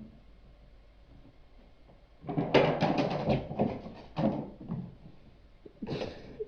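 A quick run of knocks and rattles, like a cupboard door or drawer being banged about, starting a couple of seconds in and lasting about two seconds, then a brief scuffing noise near the end.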